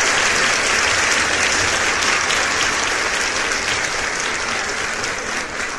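Audience applauding: a crowd's dense clapping, slowly fading.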